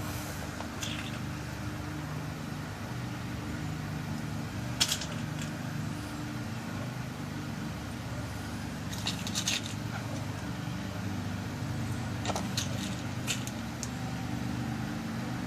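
Light metallic clicks of small brass pins being dropped into a pin-tumbler lock cylinder as it is loaded with new bottom pins during a rekey, a few scattered ticks with the sharpest about five seconds in. A steady low hum runs underneath.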